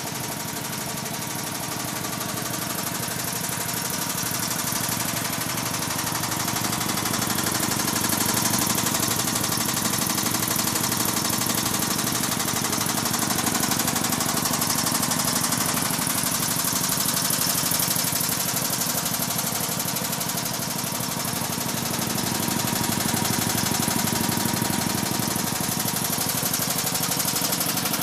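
Curtis Masterline CV96A 5 hp belt-driven horizontal reciprocating air compressor running steadily under load with a rapid, even pumping beat, filling its 80-gallon tank on the way up from its 145 psi cut-in toward the 175 psi cut-out.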